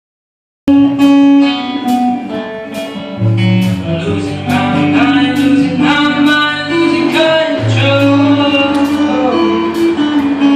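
Recorded music with guitar and a steady beat, cutting in suddenly under a second in; a deep bass line comes in about three seconds in.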